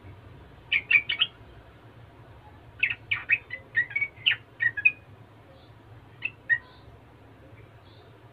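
Yellow-vented bulbul singing quick, bubbly chattering phrases: a short burst of notes about a second in, a longer run of notes at around three to five seconds, then two lone notes.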